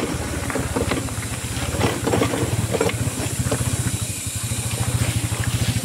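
Motorcycle engine running steadily at low speed while the bike rides a potholed dirt track. Scattered knocks and rattles over the first few seconds come from the bike jolting over the ruts.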